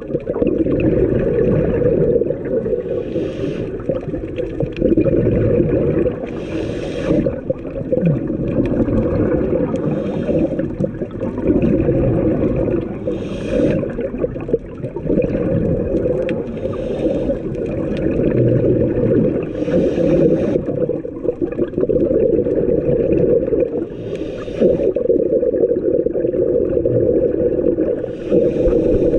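Scuba diver breathing through a regulator underwater: a short hiss roughly every three to four seconds, with exhaled bubbles gurgling and rumbling in between.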